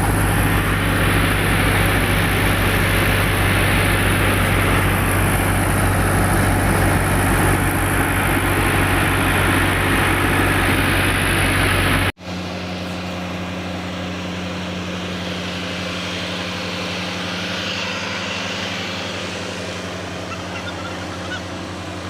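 Tractor engine driving a wheat thresher, running steadily with a low drone under a dense rushing whirr. About twelve seconds in it cuts off abruptly to a quieter, steady engine hum with much less of the rushing noise.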